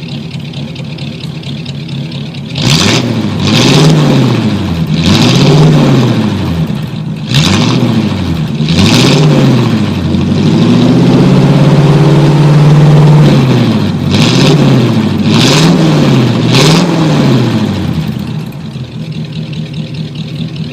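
Engine of a 1949 car idling, then revved again and again, each rev rising and falling in pitch, held high for about three seconds midway, then a few more revs before it drops back to idle near the end.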